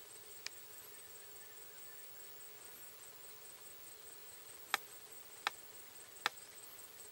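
Steady high-pitched insect drone, such as crickets, with four short sharp clicks: one about half a second in and three close together near the end.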